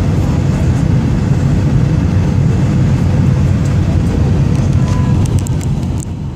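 Steady low rumble of a jetliner's engines and airflow heard inside the cabin during the approach to landing. The level dips slightly near the end, just after a few faint clicks.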